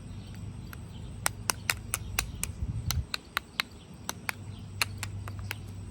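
Rapid small, sharp clicks and taps of a plastic lip gloss tube being handled, over a steady low hum.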